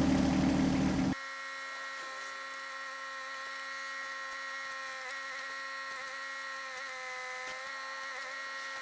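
John Deere 1025R tractor's three-cylinder diesel engine running for about a second, then cut off abruptly, leaving a quieter steady whine of several tones that dips slightly in pitch a few times.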